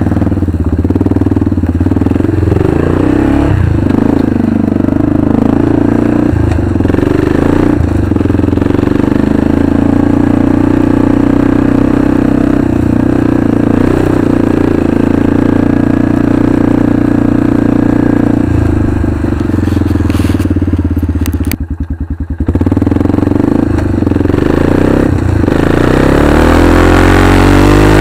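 Arctic Cat 500 ATV's single-cylinder four-stroke engine running under throttle while riding across a muddy field, dropping off briefly about three-quarters of the way through, then revving up and getting louder near the end.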